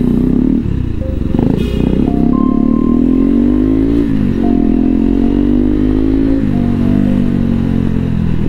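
Motorcycle engine under way, its pitch climbing as it accelerates and dropping at gear changes about four seconds in and again near six and a half seconds.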